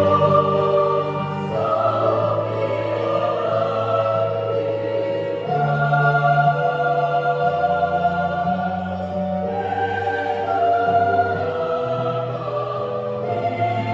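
Youth choir singing in several parts, holding slow, sustained chords that change every few seconds over steady low notes.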